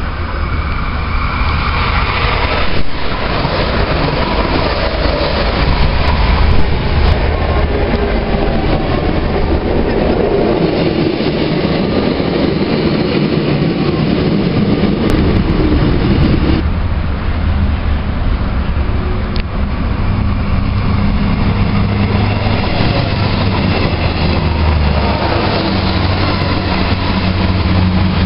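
Passenger trains at a station platform: a white commuter train runs past with a steady rumble of wheels on the rails. After an abrupt cut about 17 seconds in, another train approaches with a steady low hum.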